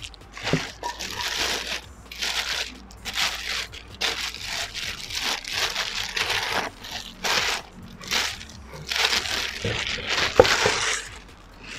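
Clear plastic bag crinkling in irregular bursts as a cookware pan is pulled out of it by hand, with one sharp knock near the end.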